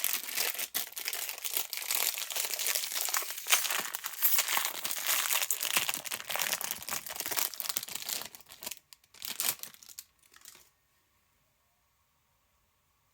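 Packaging being handled: a stretch of steady crinkling and crumpling, with some tearing, that thins to a few last rustles about nine to ten seconds in and then stops.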